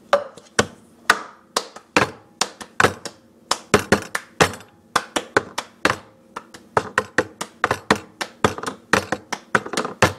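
The cup-game rhythm played on a tabletop: hand claps, taps on the table and a plastic cup lifted, knocked and set down again. It is a fast, repeating pattern of sharp knocks, a few a second, in groups.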